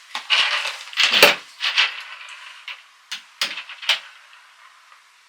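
Small metal clicks and rattles of a screwdriver and its bits being handled, with a few separate sharp clicks near the end.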